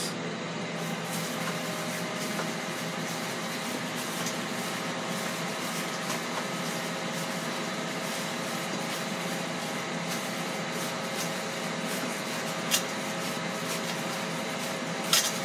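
Steady fan hum of a Ninja Foodi XL grill preheating, with a faint steady tone in it. A couple of faint knocks come from gloved hands working chicken in a stainless steel bowl, one about two-thirds through and one near the end.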